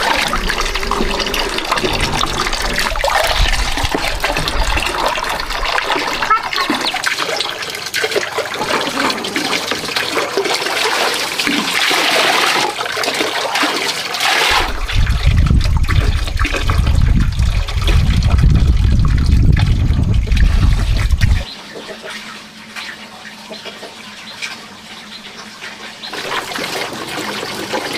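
Water pouring from a metal pipe into plastic buckets, splashing and trickling as they fill. About halfway through it swells with a deep rumble for several seconds, then drops abruptly to a quieter trickle.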